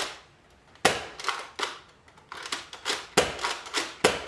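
A Nerf Rival Apollo spring blaster firing its foam balls: one loud sharp crack about a second in, then a couple of softer knocks and, from halfway through, a quick run of sharp taps of balls striking and bouncing off hard surfaces.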